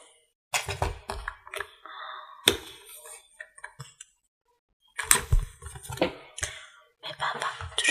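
Makeup items handled close to the microphone: a few sharp clicks and taps with light rustling between them. The quiet gaps drop to dead silence, the mark of heavy noise reduction.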